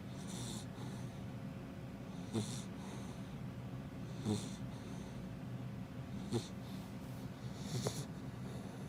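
Labrador retriever puppy snoring in her sleep: five snoring breaths about two seconds apart.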